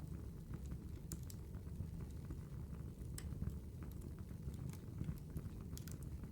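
Campfire crackling: a steady low rumble of burning wood with scattered, irregular sharp pops and snaps.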